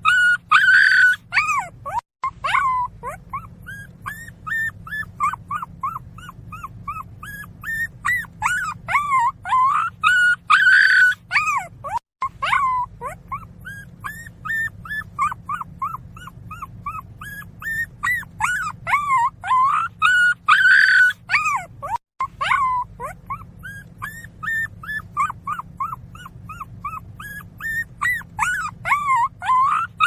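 A young puppy whimpering and crying: a rapid string of short, high-pitched cries, each rising and falling in pitch, with louder yelping bursts about every ten seconds. The same stretch of crying repeats about three times.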